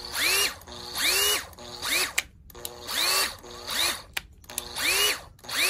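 Makita TW072D 14V cordless impact wrench run free in short trigger pulls, about one a second: each time the motor whines up in pitch and then stops quickly. The quick stops show its electric brake working.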